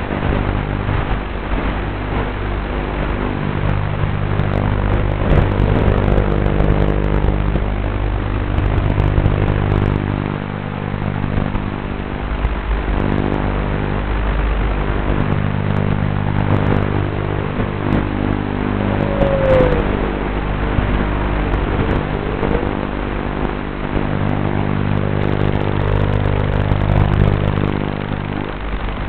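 QAV210 racing quadcopter's electric motors and propellers running in flight: a continuous buzzing hum with a short pitch sweep about two-thirds of the way through.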